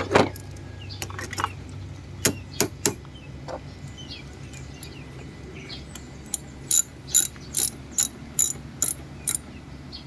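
Hand tool clicking, typical of a ratchet wrench being worked in short strokes: a few separate clicks and knocks, then a run of about eight evenly spaced sharp clicks, about three a second, in the last third.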